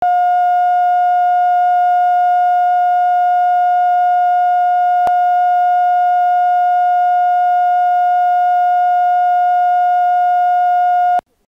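Steady line-up test tone at a single unchanging pitch, played over colour bars at the head of a videotape. It carries a faint click about halfway through and cuts off suddenly just before the end.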